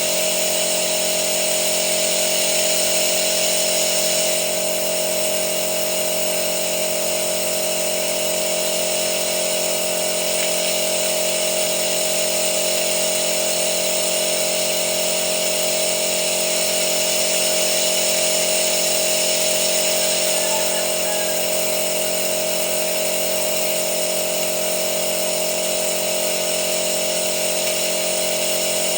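Steady mechanical whine at one constant pitch.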